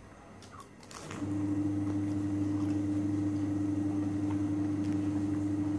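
A man humming a long, steady closed-mouth "mmm" while chewing food. It starts about a second in, holds one low pitch, and stops abruptly at the end.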